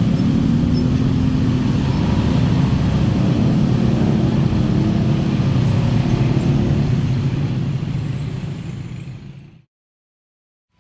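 KRL electric commuter train passing over a level crossing: a loud, steady rumble that fades away over the last few seconds and then cuts off suddenly.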